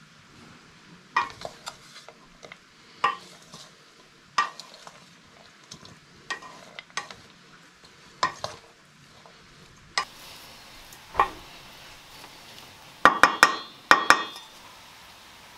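Wooden spatula stirring diced meat and vegetables in an enamel bowl, with a scrape against the bowl every second or two. Near the end, a quick run of sharp taps on the bowl's rim, each with a brief ring.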